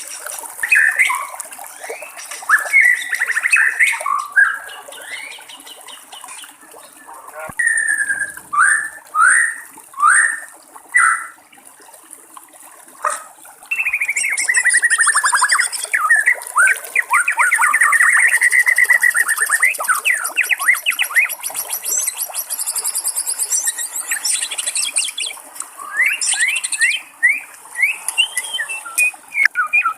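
White-rumped shama singing: loud, varied whistled phrases, a run of separate sharply sliding notes, then long rapid rattling trills in the middle, with more quick phrases near the end. Underneath, a steady high hiss of trickling water.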